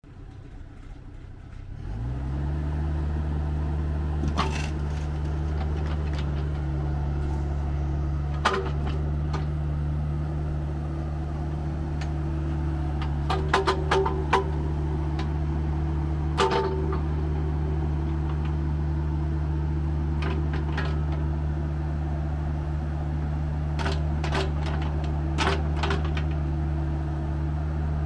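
Diesel engine of a Bobcat E26 mini excavator starting up about two seconds in and then running steadily, with short sharp knocks here and there as the boom and bucket are worked.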